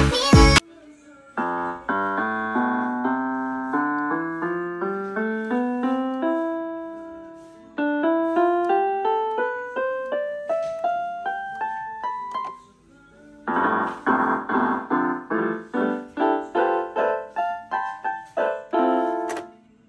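Casio SA-77 mini keyboard played by hand: two ascending runs of single notes, then, about two-thirds of the way through, a louder passage of quicker repeated notes. At the very start, louder backing music cuts off within the first second.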